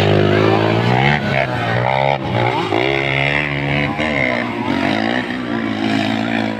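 Several dirt-bike engines revving hard under load as the bikes accelerate up a hill. Their pitch rises and falls repeatedly.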